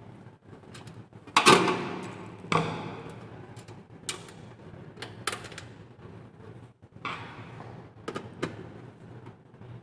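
Metal clunks and sliding scrapes from computer system-unit parts being handled and fitted. The loudest clunk and scrape come about a second and a half in and another follows a second later, then several smaller clicks and knocks.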